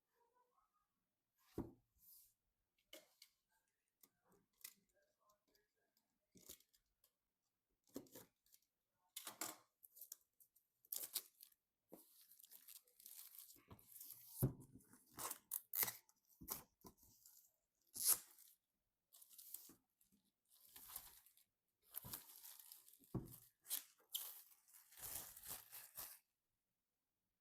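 Packaging being torn and handled at close range: irregular scratchy tearing and crinkling, busier in the second half, with a few dull knocks.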